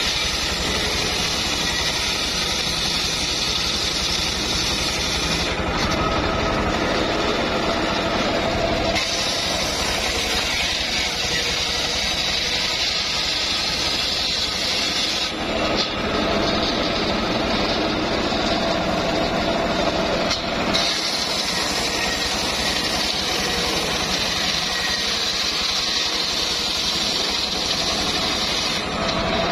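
Homemade table circular saw running and ripping lengthwise through a teak log, a steady loud sawing hiss that eases off briefly a few times between passes.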